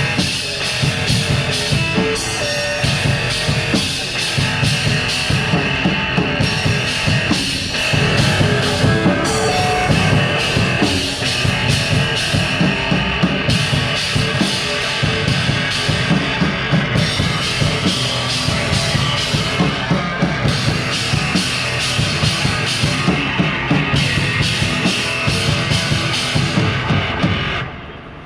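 Live rock band playing an instrumental passage, drum kit pounding out a steady beat under distorted guitar and bass; the music drops away about a second before the end.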